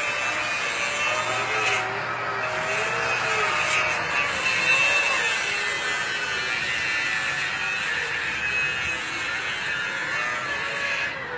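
Radio-controlled boat's motor whining, its pitch rising and falling continually as the throttle and speed change, over a steady hiss.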